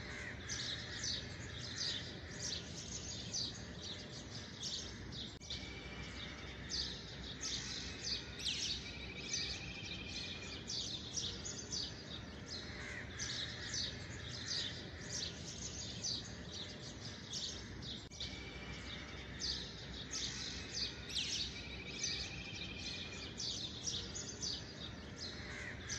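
Birdsong: many quick high chirps, with a few short trills, over a faint steady hiss. The same passage repeats about every twelve and a half seconds, as a looped ambience track does.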